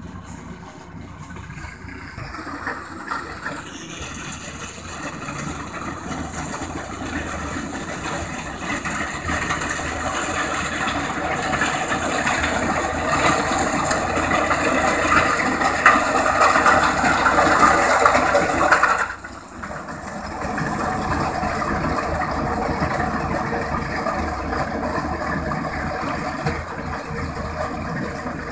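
Tractor diesel engine running under load with a mounted reaper cutting through tall crop stalks, a dense mechanical noise that grows louder as the machine draws closer. About two-thirds of the way through, it drops suddenly to a lower level and then carries on steadily.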